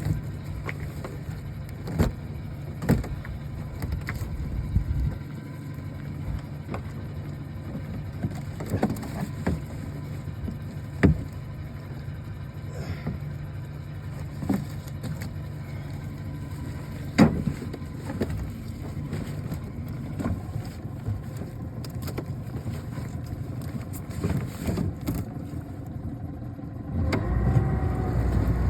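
A boat motor running low and steady, with scattered sharp knocks and thumps. Near the end the motor grows louder.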